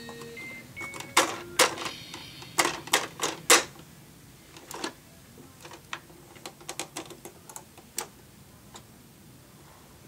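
A baby's hands slapping and hitting the plastic keys and buttons of a musical activity toy: a run of sharp plastic clacks, loudest and quickest in the first few seconds, then lighter, scattered taps.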